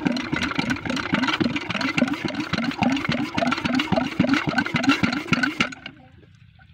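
Small engine driving a water pump runs with a rapid pulsing beat, then cuts off about five and a half seconds in.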